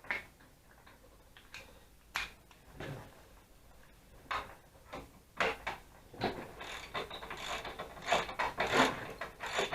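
A few separate tool clinks, then from about halfway a socket ratchet clicking in quick strokes as a motorcycle muffler mounting bolt is backed out.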